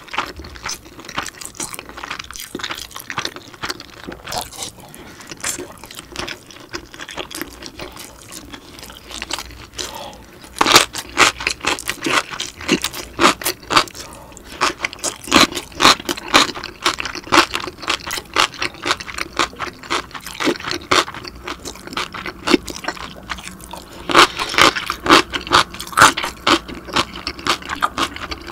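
A person chewing food close to the microphone, with crisp crunches and wet mouth clicks. The chewing gets louder and busier about ten seconds in, and again a few seconds before the end.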